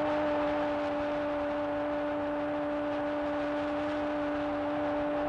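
Stadium crowd noise just after a goal, heard through an old television broadcast as a steady, even din. A steady electronic hum at one pitch runs under it.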